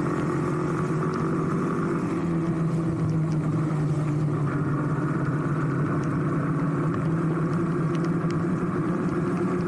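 Motorcycle engine running steadily while riding, its pitch shifting slightly about two seconds in, over a steady hiss of tyres on the wet road.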